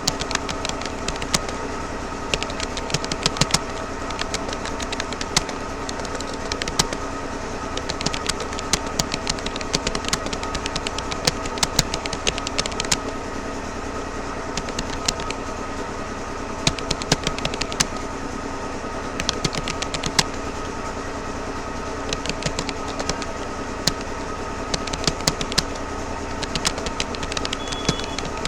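Fast touch-typing on a Rapoo computer keyboard: quick, irregular runs of key clicks with brief pauses, over a steady background hum.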